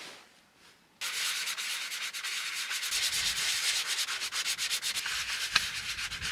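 Hand sanding of a boat hull's fibreglass gel coat with fine sandpaper, a rasping scrape in quick back-and-forth strokes that starts abruptly about a second in. The sanding smooths out an uneven gel coat repair.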